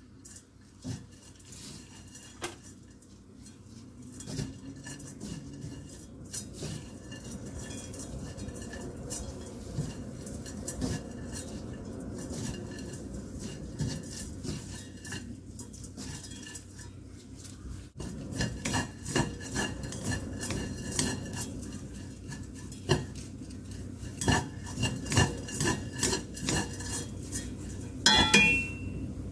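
Shredded dried squid being tossed by hand in a wok as it dry-roasts on low heat: a soft dry rustle with scattered light knocks against the pan. In the last third, wooden chopsticks stir the strands and tap against the wok in quick, sharp clicks.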